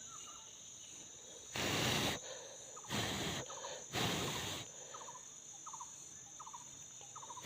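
A steady high-pitched insect drone with faint short chirps repeating about once a second. Three brief rustling bursts of about half a second each, the loudest sounds, come between about one and a half and four and a half seconds in.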